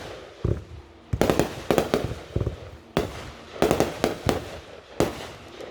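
Fireworks going off: a rapid series of sharp bangs and cracks in short clusters, about one cluster every half second to second.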